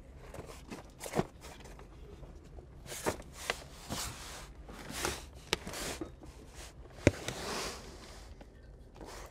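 Handling noise: scattered light knocks and clicks with rustling, as a person lying on cardboard over gravel shifts about and handles a replacement air brake spring chamber (piggyback) to fit it.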